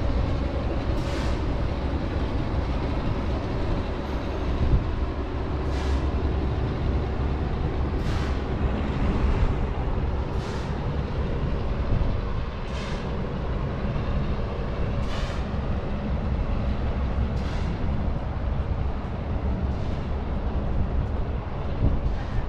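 Steady rolling and wind noise from riding a Onewheel GT electric one-wheeled board over pavement, heavy at the low end. A light tick sounds about every two seconds throughout.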